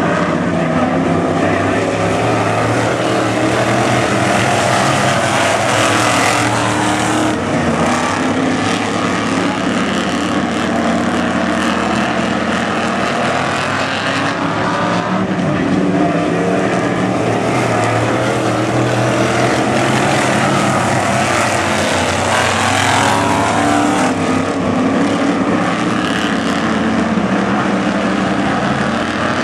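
A pack of dirt-track sportsman coupe race cars with their engines running hard together, loud and unbroken, the pitch rising and falling as the cars accelerate and back off through the turns and straights.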